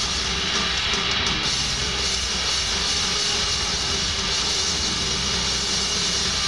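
Loud, dense droning music, steady and unbroken, without distinct strikes or beats.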